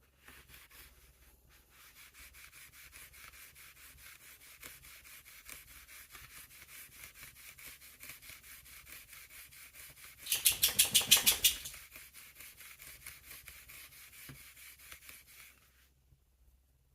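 Fine emery cloth, about 1000 grit, rubbed back and forth on a pocket knife in quick, steady strokes to polish it. About ten seconds in, a short run of louder, faster strokes. The rubbing stops near the end.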